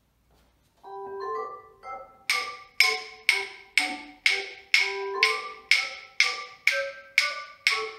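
A bright, melodic music track playing, joined from about two seconds in by wooden rhythm sticks clicked together on the beat, about two strikes a second.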